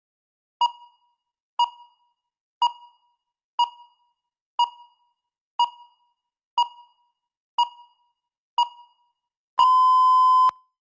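Electronic countdown-timer beeps: nine short beeps at one per second, then one longer steady beep lasting about a second near the end.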